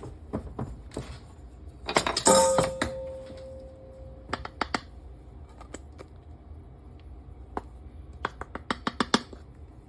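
Kitchen utensils clinking and tapping while cornstarch is measured out for a batter. A loud clink about two seconds in rings on for about a second and a half, then a run of lighter taps and clicks follows.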